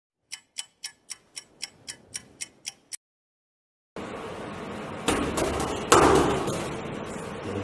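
A quick run of about eleven sharp ticks, about four a second, then a second of silence. Room noise follows, with two loud slaps of a child's boxing gloves hitting a man's bare palms, the second the louder, echoing in the room.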